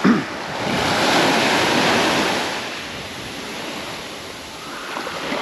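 Small waves breaking and washing up a sandy beach on a flooding tide: a swell of surf about a second in that eases off, building again a little near the end.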